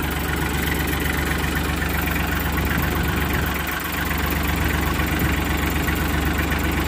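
Kubota L3800 tractor's three-cylinder diesel engine idling steadily, being warmed up so the oil drains more easily for an oil change.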